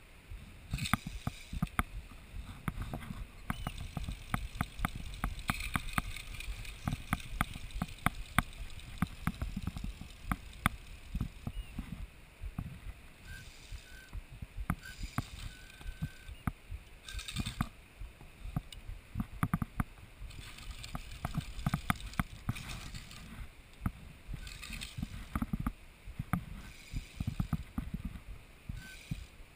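Low wind rumble on an action camera's microphone, crossed throughout by many irregular sharp clicks and taps.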